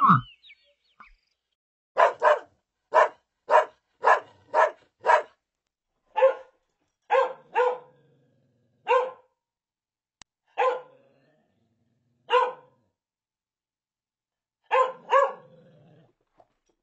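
A dog barking in short, sharp barks: a quick run of about seven, then slower single barks spaced a second or more apart, and a quick pair near the end.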